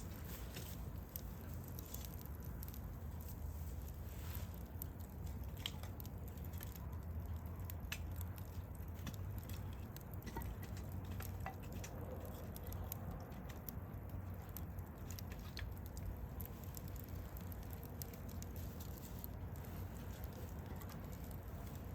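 Wood campfire crackling, with irregular sharp snaps over a low, steady rumble.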